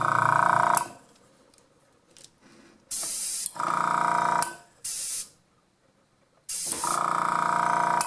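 Airbrush blowing short blasts of air, three times. With each blast the small airbrush compressor switches on with a steady, pitched motor hum and cuts out as the air stops.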